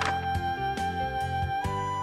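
Instrumental background music with long held melody notes over a changing lower part. A short swish sounds right at the start.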